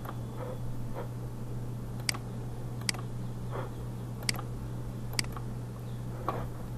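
Computer mouse clicking: four short, sharp single clicks spaced about a second apart, over a steady low hum.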